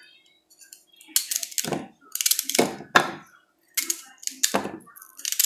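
Knife cutting through fresh celery stalks held in the hand, each cut a crisp crunchy snap: about nine snaps, unevenly spaced, with the cut pieces dropping into a plastic chopper bowl.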